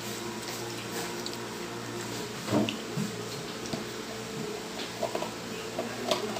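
Almond milk pouring from a carton into a drinking glass, then the carton set down on the table with a soft knock about two and a half seconds in, and small clicks near the end as its cap is closed. A steady low hum runs underneath.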